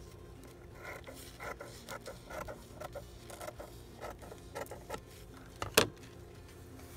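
Scissors snipping through thin paper napkin, with soft crinkling of the tissue paper, in short irregular cuts. About six seconds in, a single sharp click as the scissors are set down on the desk.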